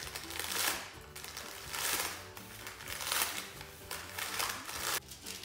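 Parchment paper rustling and crinkling in several swells as a log of cookie dough is rolled back and forth inside it, over soft background music.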